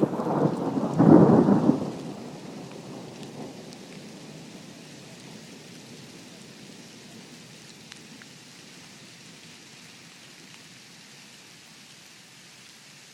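A thunderclap rumbles loudly for the first two seconds, then dies away over several seconds, leaving a steady hiss of rain.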